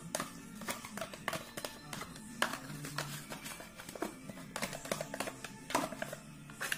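Background music with held low notes, over a spoon scraping and clicking against a small plastic yogurt pot as lemon yogurt is scooped out into a glass bowl.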